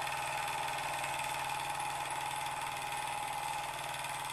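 Wilesco D20 toy live-steam engine running steadily, its flywheel spinning at an even speed, with a constant pitched hum just under 1 kHz over a fast, even chuffing.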